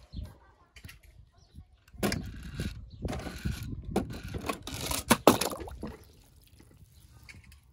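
Toy monster truck rolled and pushed over segmented plastic track, a clattering scrape full of quick clicks. It starts about two seconds in and stops about six seconds in.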